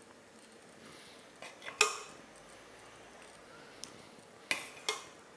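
Metal spoon clinking against a pot while curry is scooped out, a few separate sharp clinks: a double clink about two seconds in, the loudest, and two more near the end.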